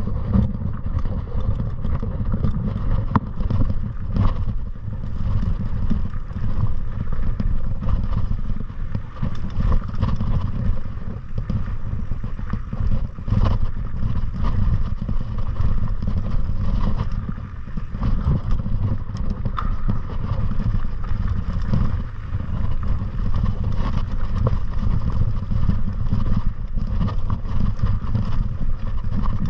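Steady low wind rumble buffeting the microphone, with scattered rattles and knocks from the bike, while riding downhill over a rough trail.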